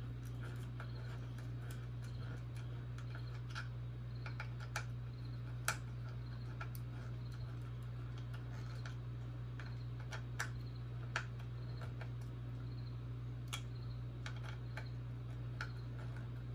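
Faint, irregular clicks and ticks of a Phillips screwdriver tightening small screws into a metal robot chassis, over a steady low hum.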